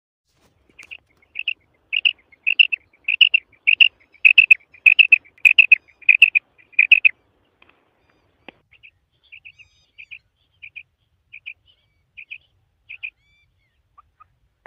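Female common quail calling: a steady string of short, high double notes about every half second, loud for the first seven seconds, then fainter and more widely spaced.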